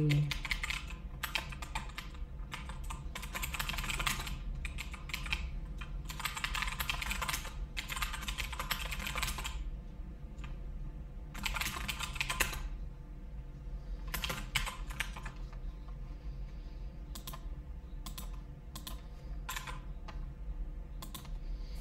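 Typing on a computer keyboard: fast runs of keystrokes through the first half, a short run a little later, then scattered single clicks.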